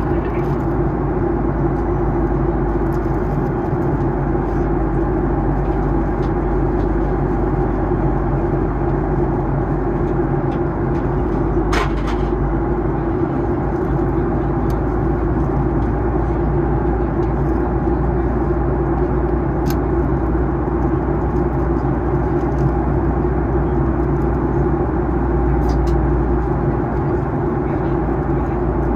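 Steady cabin drone of a Boeing 737-800 in descent, the engine and airflow noise heard from inside the passenger cabin, with a couple of faint clicks.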